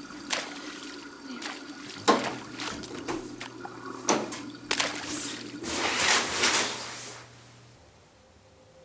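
Water splashing and trickling, with a few sharp knocks, over a low steady hum that starts about two seconds in and stops near the end.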